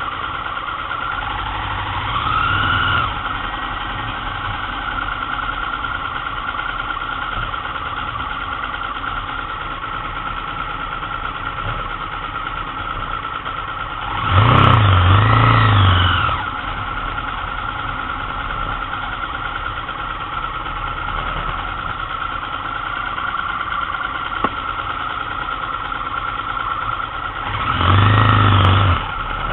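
Motorcycle engine running under way, with three surges where the revs rise and fall as it accelerates: a short one a couple of seconds in, the loudest about halfway through, and another near the end.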